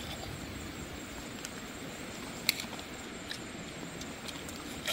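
Quiet, steady outdoor background noise, broken by two sharp clicks: one about halfway through and one near the end.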